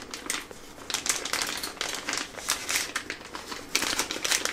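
Crinkling and rustling of a thin translucent protective wrapping sleeve as a DJI Osmo Pocket 3 camera is worked out of it by hand, in irregular bursts that are busiest near the end.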